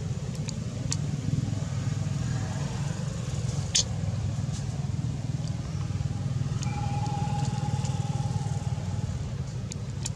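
Steady low rumble of an engine running, with a few faint sharp clicks.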